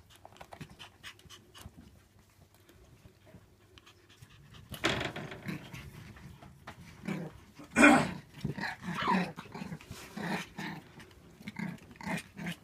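Shiba Inu puppies play-fighting: light scratching and tapping at first, then short puppy growls and yips coming thick from about five seconds in, the loudest about eight seconds in.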